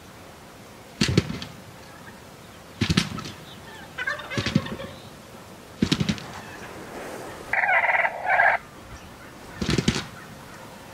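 Gould's wild turkey gobbling, five loud rattling gobbles every second or two. A brief two-part call sounds about eight seconds in.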